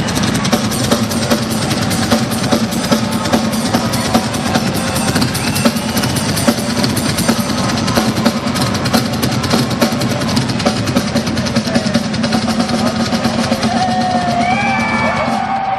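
A rock drum kit played live in a fast solo: continuous rapid hits and rolls across the drums and cymbals, with the bass drum underneath.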